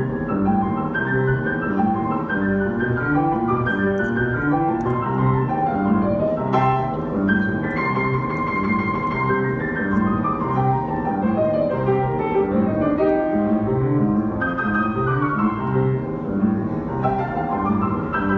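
Grand piano played solo: a boogie-woogie piece, with a steadily repeating left-hand bass pattern under changing right-hand notes.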